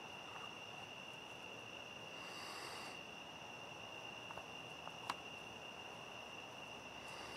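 Faint, steady trilling of crickets, one unbroken high tone, with a single faint click about five seconds in.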